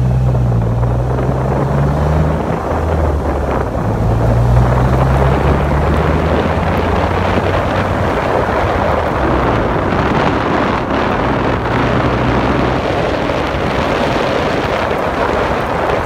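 Polaris Slingshot's engine running as it is driven along a street, with heavy wind rushing over the microphone from the open cockpit and hood.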